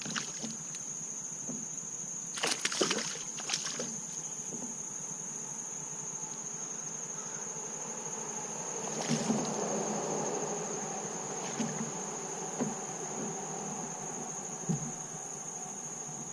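Steady high-pitched insect chorus, with splashing and knocks around three seconds in and again about nine seconds in as a hooked bass is handled beside a kayak.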